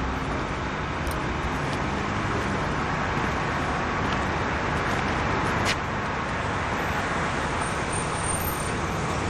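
Steady hum of road traffic, with no single vehicle standing out. A few faint ticks and one short click about halfway through sit over it.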